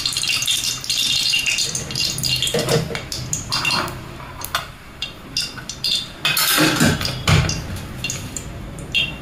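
Cooking oil heating in a metal kadhai, crackling and spluttering as small bubbles burst, densest in the first couple of seconds. A few clinks and knocks of a ladle and utensils against the pan, loudest about six to seven seconds in.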